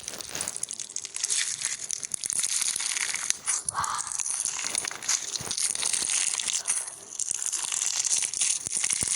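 Loud, continuous crunching and crackling, a dense stream of small cracks as something brittle is crushed.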